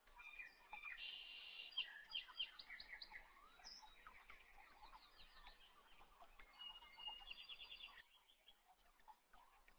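Faint birds chirping, a string of short high chirps and quick trills.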